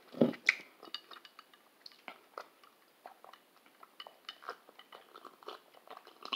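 Close-up eating and drinking sounds: chewing and sips from a stemmed glass, heard as a string of small wet mouth clicks and light clinks.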